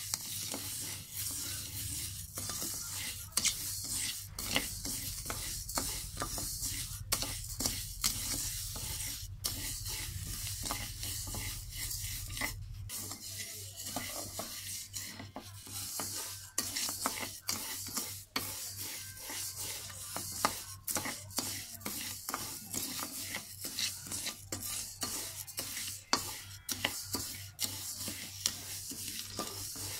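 Wooden spatula stirring and scraping dry glutinous rice grains around a dark metal wok: a continuous rasping hiss of grains sliding over the metal, with frequent short scrapes. The rice is being dry-roasted without oil.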